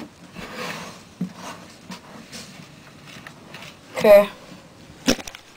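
Play sand being spread and smoothed by hand across a vivarium floor: soft rustling scrapes with a few light knocks, then a sharp click near the end.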